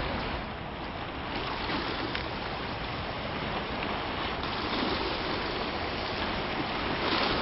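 Steady rushing outdoor ambient noise with a low rumble underneath and no distinct events.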